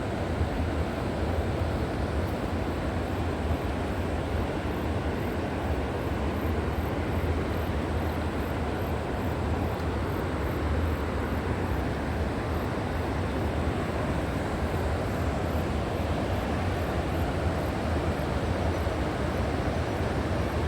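River water rushing steadily, a continuous even rush with a deep low rumble. A faint high pulsing, about twice a second, runs on above it.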